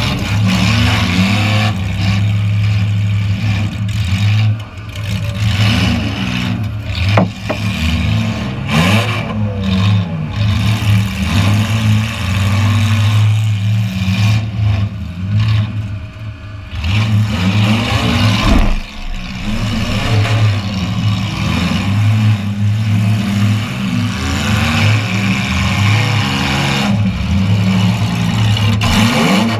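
Demolition derby car's engine running hard and revving up and down, heard from inside its stripped-out cabin. Two sharp knocks cut through, one about a quarter of the way in and one past the middle.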